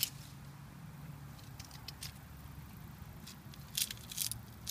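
Short bursts of rustling among leaves and dry garden litter, a few scattered scuffs that grow loudest near the end, over a low steady background rumble.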